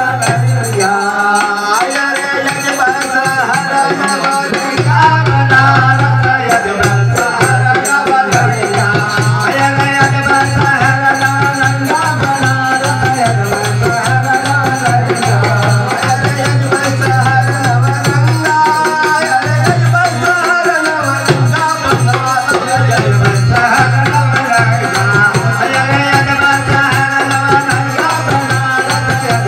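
Live Holi folk song (phagun geet): harmonium chords over a steady dholak rhythm, with men singing into microphones.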